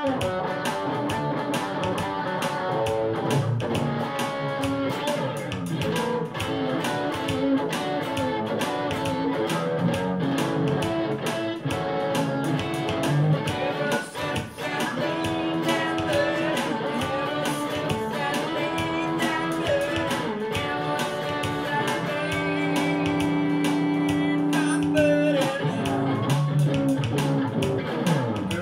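Electric guitar playing a gospel shuffle over a steady beat, with held chords a little past two-thirds of the way through.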